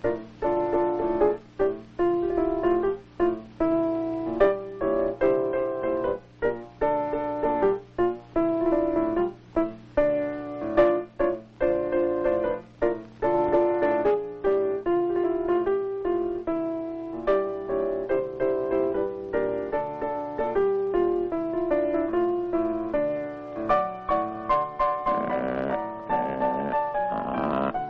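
Piano music: a tune played over a regular beat of chords.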